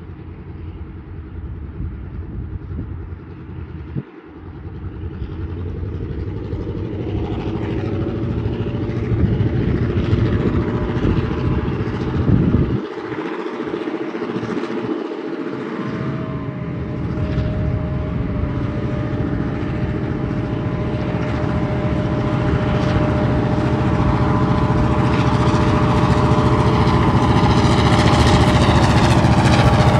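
Three diesel locomotives running coupled as light engines (4917, 4904 and CLP9) approaching, their engines running with a low, steady rumble that grows steadily louder as they draw near. A steady tone joins in about halfway through.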